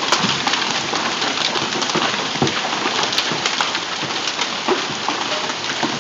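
Heavy hailstorm: a dense steady hiss of hail and rain, with many sharp individual hits of hailstones striking the ground and surfaces.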